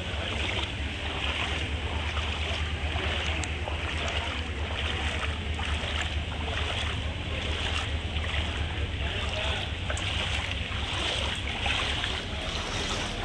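Steady wash of rain and water noise over a flooded platform, with a low wind rumble on the phone's microphone.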